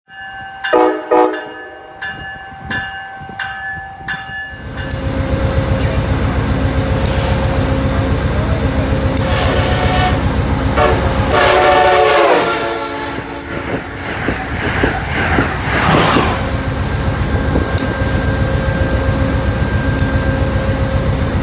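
P40DC diesel locomotive running with a steady low throb at the platform, after a few seconds of short repeated tonal notes. A train horn sounds about ten seconds in and again around fifteen seconds, its pitch sliding down.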